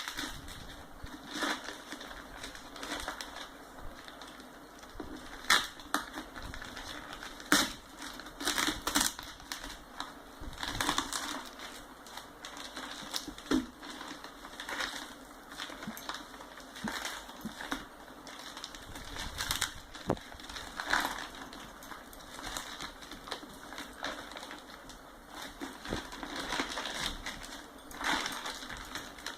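Tightly wrapped shipping packaging being cut and pulled open by hand with a kitchen knife: irregular crinkling, scraping and tearing, with sharper crackles now and then.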